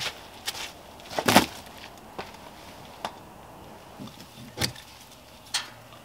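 Footsteps crunching on dry leaf litter, with one loud crunch about a second in, then a few sharp clicks and knocks as an extension cord plug is handled at a portable generator that is not running.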